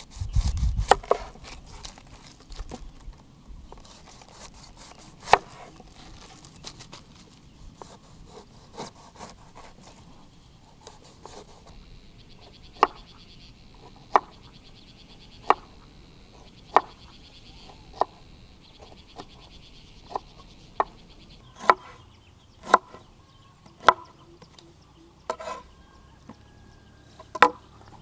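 Chopping on a wooden board: sharp single knocks, about a dozen of them roughly a second or so apart through the second half, with lighter scattered knocks and rubbing before. A steady high buzz runs through the middle.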